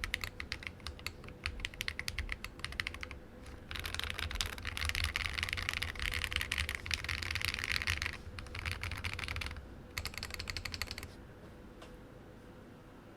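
Typing on a Lily58 split keyboard with lubed Glorious Panda tactile switches, SA-profile PBT keycaps and an acrylic plate and base. Individual keystrokes clack at first, then build to a fast, dense flurry in the middle, followed by a few shorter runs of keystrokes. The typing stops near the end.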